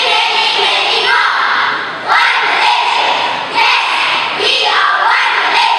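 A children's choir reciting loudly in unison in choral speaking, delivered in short forceful phrases with a new phrase starting every second or two.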